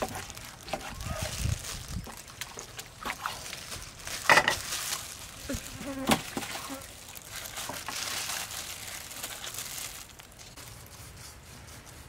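Knife cutting and scraping through a large piece of beef on a wooden chopping block as the meat is worked and shifted, with scattered clicks and two sharper knocks about four and six seconds in.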